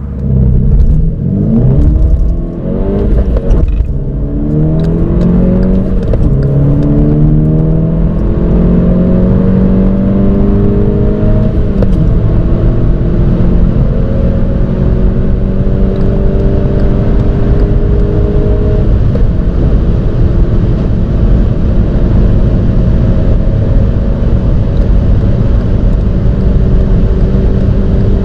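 VW Polo R WRC's turbocharged 2.0-litre four-cylinder engine under full-throttle acceleration from a standstill, heard inside the cabin. Its pitch climbs through each gear and drops back at every upshift, with quick shifts at first and longer, slower climbs in the higher gears.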